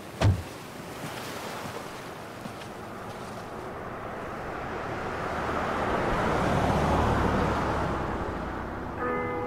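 A dull thump just after the start, then a rushing noise of wind and surf that slowly swells to its loudest about seven seconds in and eases off. A few steady musical notes come in near the end.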